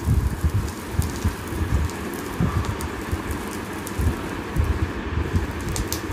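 Onion-tomato masala with spice powder sizzling in oil in a metal pan while it is sautéed, a metal spoon stirring and scraping it around with irregular knocks and clicks against the pan.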